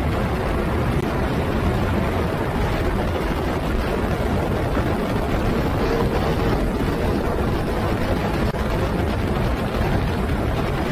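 Onboard sound of an open-wheel single-seater race car at speed on a flying lap: engine noise blended with heavy wind rush over the camera microphone, steady and loud.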